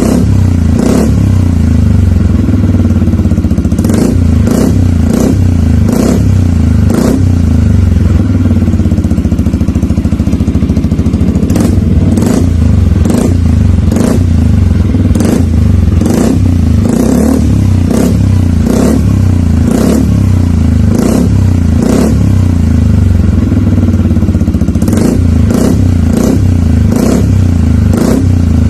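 Yamaha XMAX 250 scooter's single-cylinder engine running through an aftermarket Burnout GP Long full-system exhaust. It is revved over and over in short throttle blips on top of a steady running note, with a sharp crack about every second.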